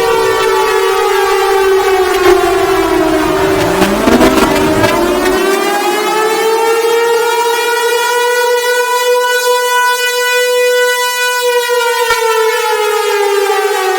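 Civil-defence warning siren sounding. One wailing tone falls away in the first few seconds while a second winds up from low about four seconds in, holds steady, and begins to wind down near the end. A low rumble underneath cuts off about five seconds in.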